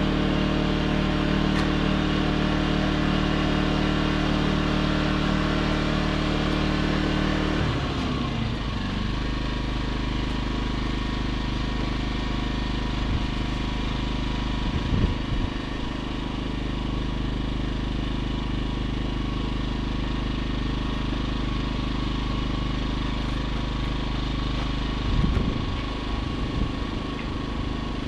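Champion inverter generators running steadily. About eight seconds in, the engine note drops and settles at a lower, steady speed. A few brief knocks come near the middle and toward the end.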